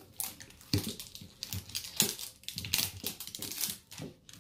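The wrapping of an L.O.L. Surprise Under Wraps capsule crinkling and tearing as it is peeled off, in a run of irregular short rips and crackles.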